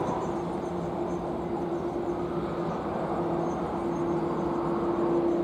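Jet airliner engines running at low taxi power: a steady rushing noise with a low steady hum that grows a little stronger in the second half.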